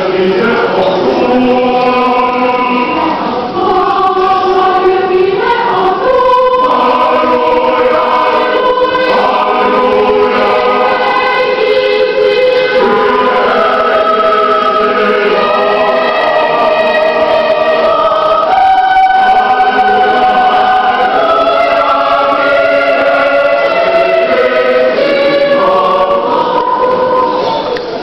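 A choir singing in sustained chords, the notes changing every second or two, recorded from among the singers; the singing fades out near the end.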